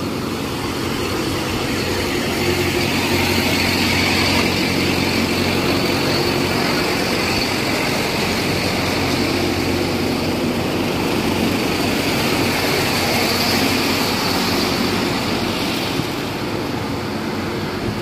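Heavy truck engine, from a vacuum tanker truck, running steadily at idle with a steady hiss above it. It grows a little louder about two seconds in and eases slightly near the end.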